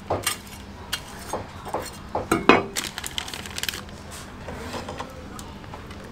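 Metal cooking utensils clinking and scraping: a steel spatula against the griddle and metal tongs and a ladle against a stew pot. Several sharp clinks come in the first three seconds, then it goes quieter.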